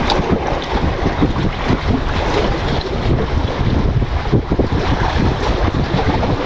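Wind buffeting the microphone in gusts, over the sea washing against the breakwater rocks.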